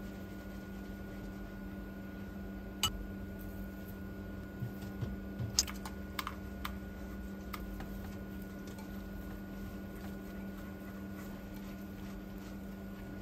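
Light clicks and taps of seasoning shakers and containers being opened and shaken over a glass mixing bowl, about half a dozen in the middle, over a steady low hum.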